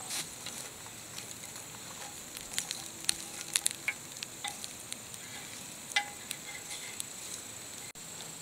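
Metal tongs clinking and scraping among charcoal briquettes in a small steel grill box as the coals are spread out: scattered light clicks and taps, busiest a few seconds in.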